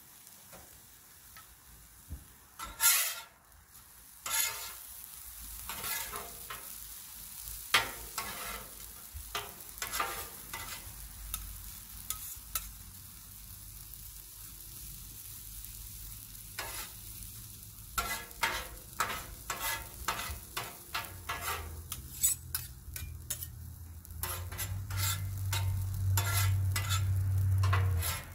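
Metal spatulas scraping and clacking on the steel top of a Blackstone griddle as shredded hash browns sizzle in oil, a long string of short scrapes. A low rumble swells in over the last several seconds.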